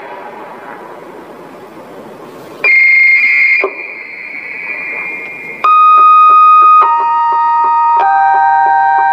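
Dam discharge warning loudspeaker: after a steady rushing hiss, a high electronic tone sounds for about a second, then a slow chime of electronic tones steps down in pitch, about one note a second. It signals that the gates are being opened to release water.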